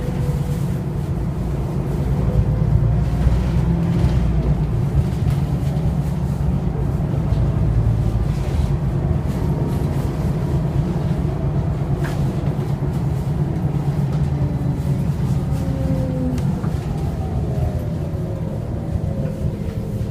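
Interior running noise of a New Flyer DE60LFR articulated diesel-electric hybrid bus under way: a steady low drivetrain rumble, with a thin whine that slides in pitch as the bus changes speed near the end.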